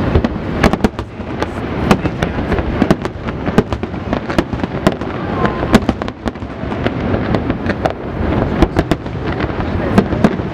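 Fireworks display: many sharp bangs and crackles in quick succession, several a second, over a continuous low rumble.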